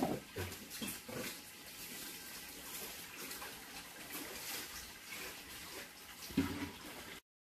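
Plastic sheeting crinkling and rustling in small irregular crackles, with a dull thump about six seconds in; the sound cuts off suddenly just before the end.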